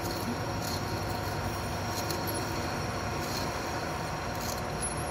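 Manual engine lathe running with its chuck spinning as the tool cuts a metal workpiece: a steady machine hum with a faint high whine and a few light high ticks.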